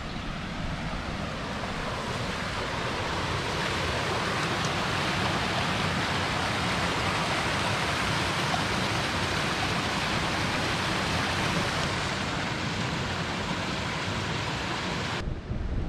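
Small tributary brook rushing, a steady sound of running water that swells a little over the first few seconds and breaks off abruptly near the end.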